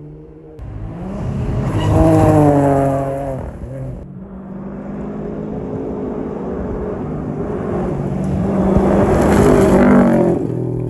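Rally cars at full throttle on a gravel stage. One flies past about two seconds in, its engine note falling as it goes by. After a cut, another car's engine grows louder as it approaches and passes close near the end.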